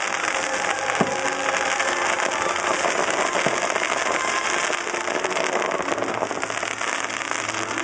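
Aerial fireworks going off in a dense, continuous barrage, with sharp bangs about a second in and again about three and a half seconds in.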